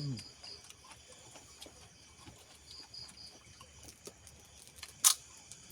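Crickets chirping faintly in short trills of a few high pulses, over scattered light ticks and clicks. One sharp click about five seconds in is the loudest sound.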